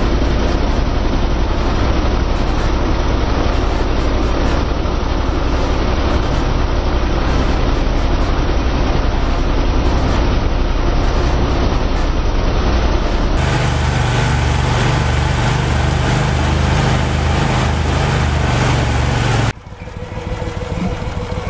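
Mud boat's surface-drive mud motor running at speed, its propeller throwing up a rushing, hissing wash of spray. The sound changes abruptly about two-thirds of the way in to a steadier low hum. It drops sharply near the end to a quieter engine drone.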